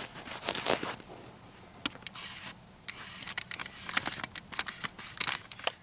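Food packaging being handled and opened by hand: rustling with many short sharp clicks, in irregular bursts.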